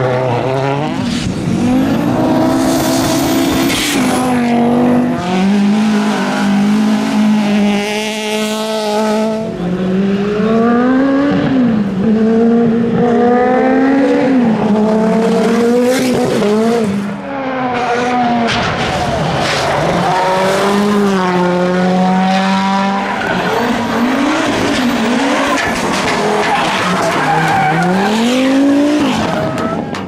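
Rally cars driven flat out past the spectators, one after another: engines revving hard up and down through the gears, with sharp cracks and the tyres sliding on gravel and tarmac.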